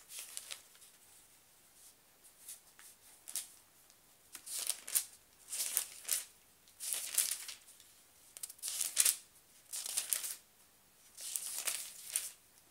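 Bible pages being leafed through: a run of short papery rustles, roughly one a second, louder from about four seconds in.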